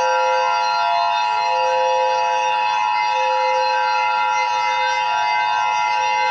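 Emergency Alert System attention signal: a steady, loud two-tone alarm of two high pitches sounding together, held without a break, over a sustained synthesized drone.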